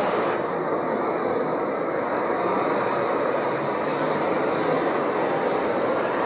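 O gauge model diesel locomotive running past with a wagon in tow, giving a steady, unbroken running sound.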